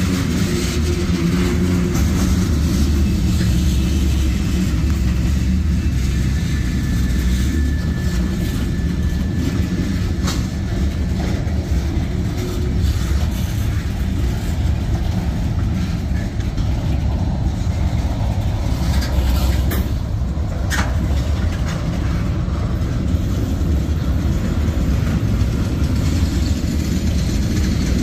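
Freight train of tank cars rolling past close by: a steady, heavy rumble of steel wheels on the rails with scattered clicks, and one sharp clank about two-thirds of the way through.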